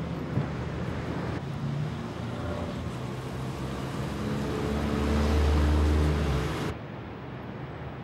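Road traffic: cars running along a city street, with one vehicle's engine growing louder and passing about five seconds in. The sound cuts off suddenly near the end, leaving a quieter background hum.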